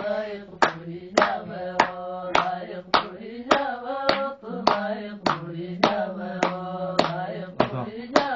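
Singing accompanied by steady hand claps, about one clap every 0.6 seconds, keeping the beat.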